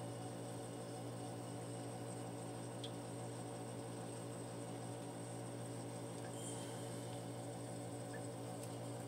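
Steady low electrical hum with a faint high-pitched whine over it, unchanging throughout.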